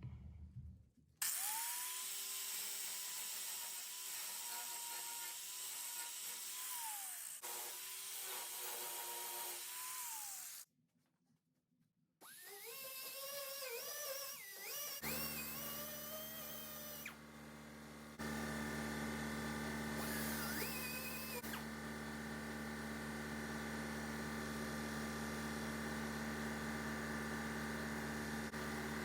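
Angle grinder with a flap disc grinding down fresh welds on sheet-metal patch panels, in several short runs: a steady motor whine that wavers under load and falls in pitch as it spins down, with abrupt cuts between runs.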